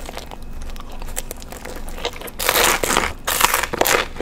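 Close-miked eating of Pizza Hut pan pizza crust and a breadstick: small crackly chewing clicks, then two loud crisp crunches, about two and a half and three and a half seconds in.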